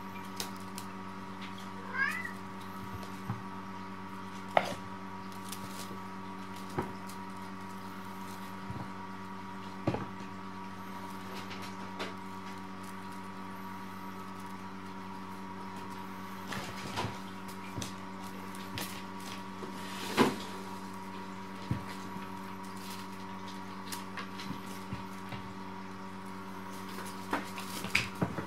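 Munchkin kittens giving an occasional short mew, with scattered light knocks and clicks, over a steady hum.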